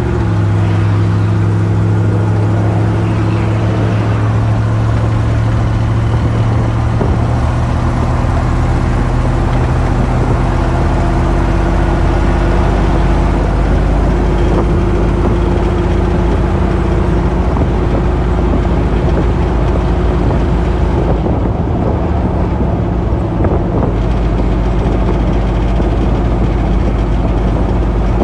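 Chevy 350 V8 in a lifted 1980 Jeep CJ5 running at highway speed through its dual exhaust, heard from inside the cab along with steady road noise. The engine note shifts a little about halfway through.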